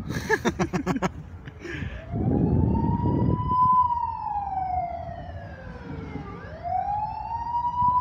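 Vehicle siren on a slow wail: its pitch climbs to a high peak, sinks slowly, then climbs again to a second peak near the end. A short low rumble sounds under the first rise.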